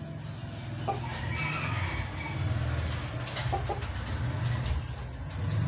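Chickens clucking in short calls over a low steady hum, with a few faint knocks.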